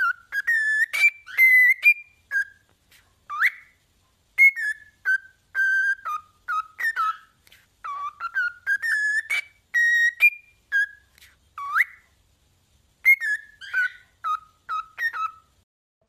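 Cockatiel whistling a long string of short clear notes, some sweeping sharply upward, with a short pause about three quarters of the way through.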